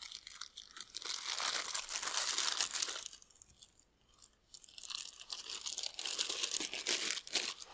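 Plastic packaging crinkling and crackling as it is handled and opened, in two stretches with a short pause of about a second and a half in between.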